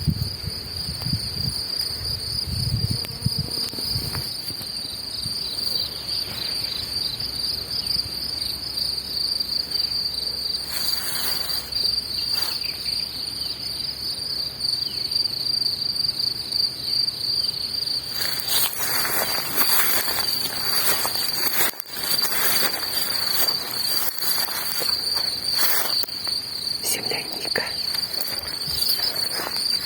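Insects singing in a steady, high, finely pulsing chorus, with a few brief rustles partway through.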